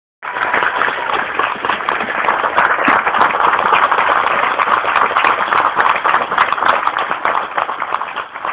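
Audience applauding, a dense run of many hands clapping that fades near the end.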